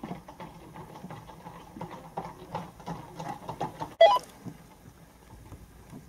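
Many horses' hooves clattering on a tarmac road, a quick irregular run of clip-clops. About four seconds in there is a single brief, loud, sharp sound.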